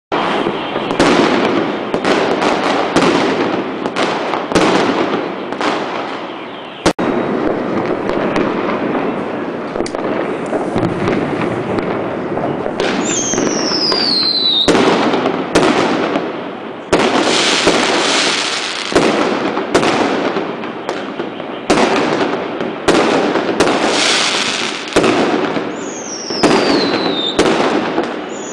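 A dense barrage of fireworks: a steady crackle with many bangs one after another. Twice, about halfway through and again near the end, a whistling firework gives a falling whistle.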